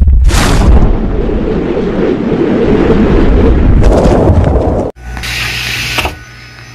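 Animated-intro sound effects: a whoosh, then a loud low rumbling noise with a second whoosh near its end. The effects cut off abruptly about five seconds in, followed by a short hiss.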